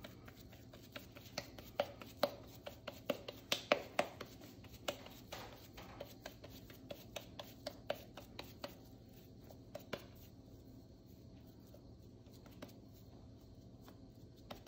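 Oiled hands patting and pressing soft shami kebab mixture of minced chicken and chana dal into a patty: a quick run of soft pats and sticky slaps that thins out and stops about ten seconds in.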